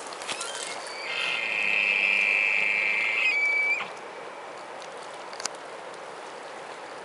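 Young bull elk bugling: one long, high whistle of about three seconds with a faint low tone under it, stepping down in pitch at the end. It is a rutting call.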